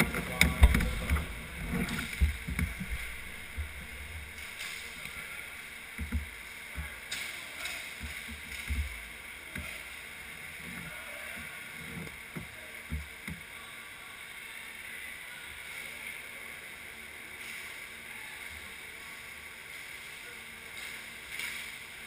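Irregular low thumps and knocks of the goalie's pads and stick bumping the goal net that the camera is fixed to, heaviest at the start and again through the middle, over a steady hiss of rink background noise.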